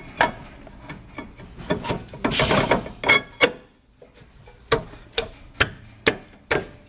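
Rear brake rotor scraping and rubbing as it is worked onto the hub over the parking-brake shoes, then about five sharp slaps, roughly two a second, as it is struck with the palms to seat it.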